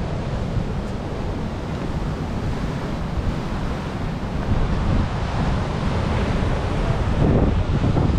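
Wind blowing on the microphone over a steady rush of surf.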